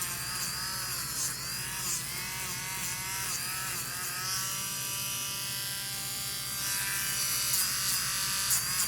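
Small electric rotary nail grinder whining as it files a parrot's nails, its pitch dipping briefly every second or so as it presses against the nail. It runs at a steady pitch for a couple of seconds in the middle, then dips again near the end.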